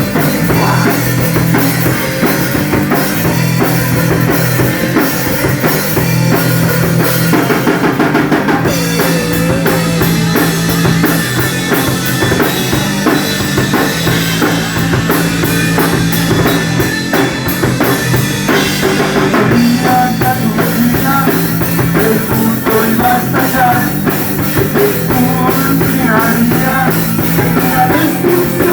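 Rock and roll band playing an instrumental passage, with the drum kit prominent.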